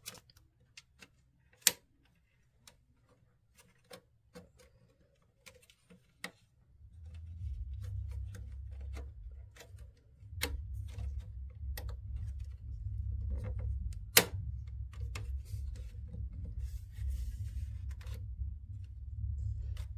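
Sharp plastic clicks and taps from hard plastic printer parts being pushed and jiggled into place as the AP board's housing is lined up on the printer frame. A steady low rumble joins them about seven seconds in, and the two loudest clicks fall about two seconds in and near fourteen seconds.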